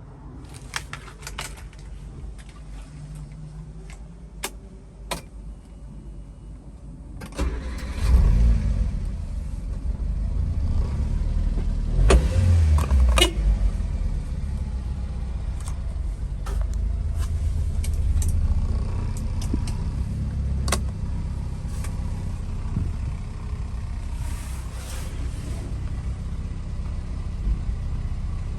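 1995 Subaru Sambar mini truck's supercharged EN07 engine. After a few sharp clicks it starts about seven and a half seconds in, is revved briefly about twelve seconds in, then runs steadily.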